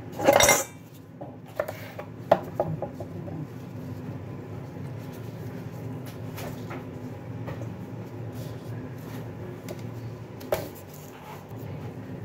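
Food preparation on a wooden chopping board, with a kitchen knife and cabbage leaves being handled. A loud half-second clatter comes about half a second in, followed by a few light knocks and clinks, and one more knock near the end, over a steady low hum.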